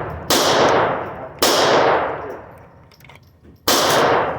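Three pistol shots in an enclosed range, the second about a second after the first and the third about two seconds later, each followed by a long echoing decay.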